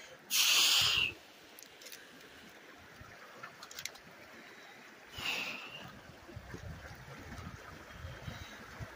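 Shallow mountain creek trickling and gurgling over rocks at low water. Two short hissing sounds break in: a loud one about half a second in and a softer one about five seconds in.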